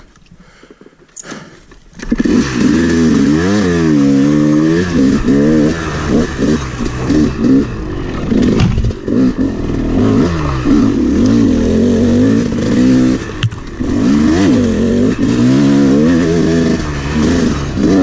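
Freshly rebuilt single-cylinder two-stroke engine of a 2011 Yamaha YZ250 dirt bike, ridden on a trail. After a quiet first two seconds it comes in loud and revs up and down over and over as the throttle is worked.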